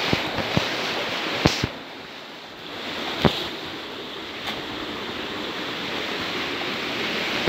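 Footsteps knocking on loose river stones, several sharp clicks spread through the first half, over a steady rushing hiss that drops away briefly about two seconds in.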